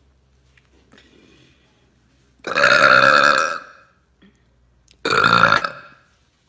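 A young woman burps loudly twice: a long belch of about a second, then a shorter one a couple of seconds later.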